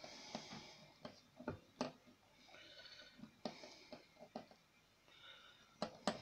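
Scattered small clicks and taps as fingers handle and fit the brass parts of a handmade model steam engine, the loudest pair near the end, with soft breathing noise between them.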